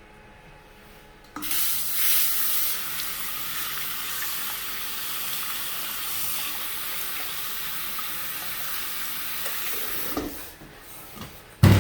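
Electric hand dryer switching on about a second and a half in and blowing a steady hissing rush of air, then cutting off near the end; a louder sound starts just as it ends.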